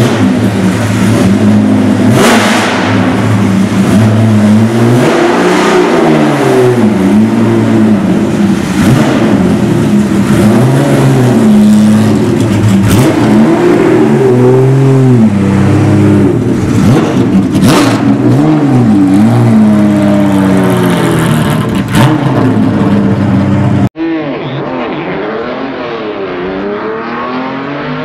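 BMW 3.0 CSL race car's straight-six engine idling, then revved again and again at standstill, its pitch swinging up and down with each blip of the throttle. About 24 seconds in, the sound cuts abruptly to a quieter, duller engine note.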